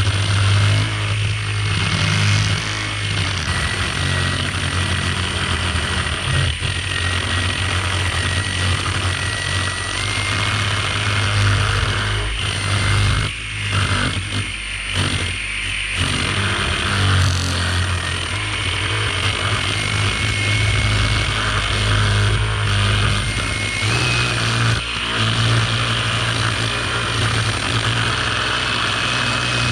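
String trimmer running steadily while cutting grass along a wall, a low hum under a high whine that drifts slightly in pitch. It eases off briefly a few times around the middle.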